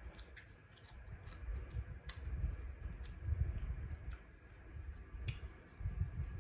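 Eating sounds of a person chewing fried fish and picking at it with the fingers: scattered sharp clicks and smacks, roughly one or two a second, over low rumbling handling noise.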